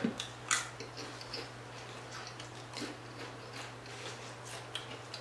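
Lay's Fried Pickle with Ranch potato chips being chewed close to the microphone: a loud crunch at the very start, then softer irregular crackles every half second or so.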